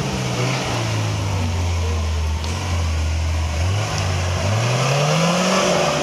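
Off-road vehicle engine revving under load, its pitch dipping and rising, with a strong rise about four and a half seconds in that falls away near the end.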